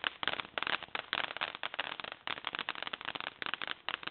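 Tank-shaped novelty fireworks going off with a dense, rapid crackling of many small pops.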